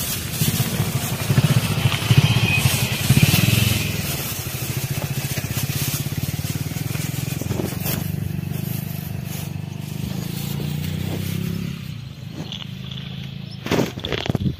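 An engine running steadily, with the rustle and crinkle of a plastic bag being handled. The engine drops away about twelve seconds in, and two sharp knocks follow near the end.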